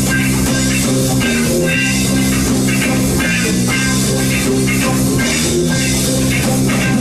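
Live band playing an instrumental passage with guitar, bass guitar and drum kit and no singing, on a steady repeating bass line and beat.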